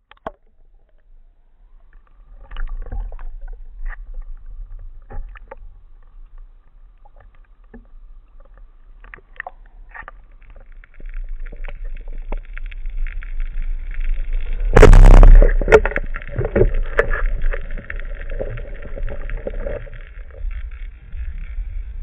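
Underwater water noise picked up by a camera in a housing: a low rumble with scattered clicks, and a loud rush of noise about 15 seconds in.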